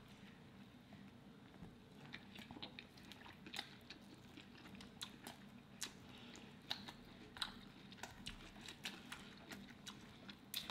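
Faint close-miked eating sounds: chewing and biting into a soft burrito and a rice burrito bowl, with many short wet mouth clicks and smacks scattered throughout.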